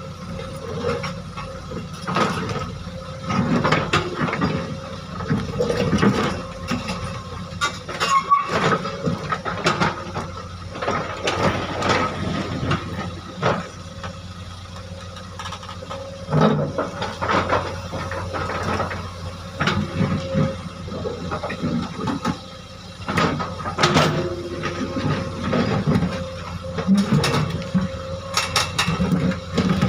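Hydraulic excavator's diesel engine running under load, with repeated irregular clanks and scrapes as the bucket works large boulders, and a brief metallic squeal about eight seconds in.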